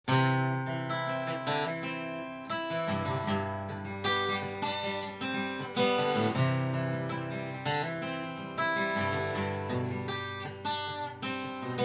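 Solo acoustic guitar strummed by hand, a steady run of chord strokes about every half second to second, playing the song's intro before the vocal comes in.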